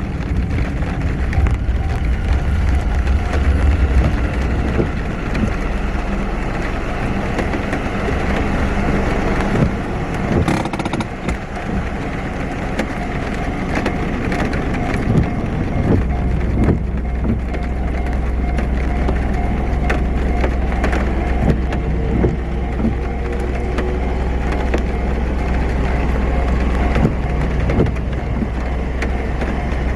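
Traffic noise at a railway level crossing: a steady low engine rumble with tones from passing vehicles, the rumble shifting about sixteen seconds in.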